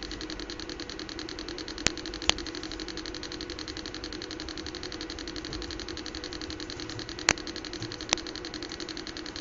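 Steady electrical hum with a fast, even pulsing, broken by four sharp clicks, two at about two seconds in and two near the end.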